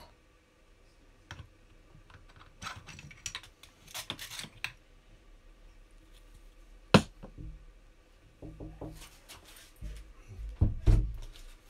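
Handling noise from the aluminium crankcase of a disassembled model nitro engine: scattered light clicks and taps of metal parts, with one sharper click about seven seconds in. Near the end come a few dull knocks as the crankcase is set down on the table.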